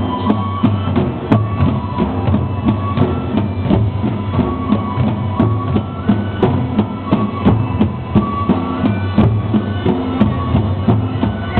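Japanese festival music: taiko drums beating a steady rhythm under a held, high melody line.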